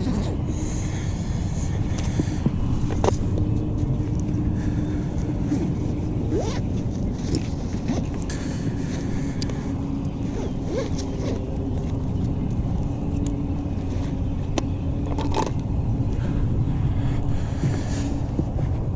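Steady low rumble throughout, with scattered small clicks and knocks of fishing tackle being handled while the rods are set up.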